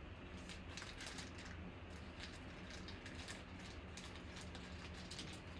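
Faint, irregular crinkling and clicking of clear plastic trading-card sleeves and rigid toploaders being handled, over a steady low hum.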